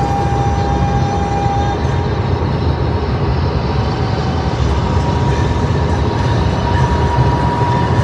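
Steady low road rumble of a vehicle driving at highway speed, with a faint steady whine. It grows a little louder over the last few seconds as a tractor-trailer passes close alongside.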